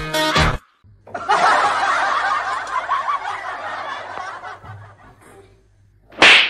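Laughter from many people, like a laugh track, fading out over a few seconds, with a short loud sound near the end.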